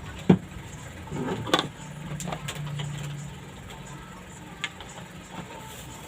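A few sharp clicks and knocks from parts being handled, the loudest just after the start, over a steady low hum.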